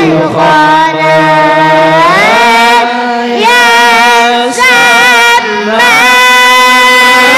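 A solo voice singing a syair, an Islamic devotional praise poem, in long held notes: a slow upward slide about two seconds in, then ornamented melodic turns through the middle. No drumming.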